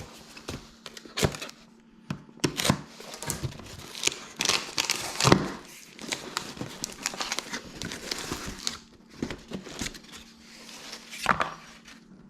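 Cardboard box being torn open and packing material crumpled and rustled, with irregular crackles and a couple of louder rips.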